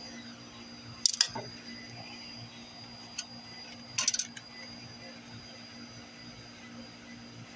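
Hand-tool disassembly of a flat-screen TV: sharp clicks and knocks as the last screw and the screwdriver come away, then a short clatter about four seconds in as the main circuit board is lifted off its sheet-steel chassis. Under it runs a faint steady high tone.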